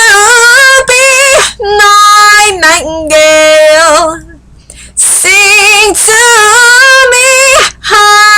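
A woman singing solo with no accompaniment, holding long notes with vibrato, with a short breath pause about four seconds in.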